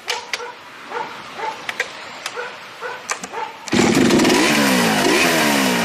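Chainsaw sound effect: after a few seconds of scattered sharp clicks and short faint yelp-like sounds, a chainsaw suddenly starts running loud about two-thirds of the way in. It revs up and down repeatedly.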